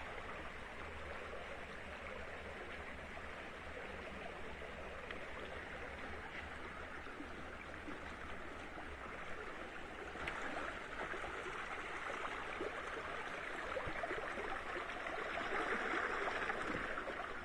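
Shallow stream running and gurgling over rocks in a steady wash, growing louder about ten seconds in and again near the end.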